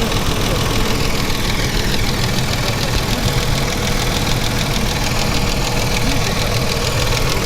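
Mercedes-Benz M112 V6 petrol engine idling steadily, with a regular knock running through it.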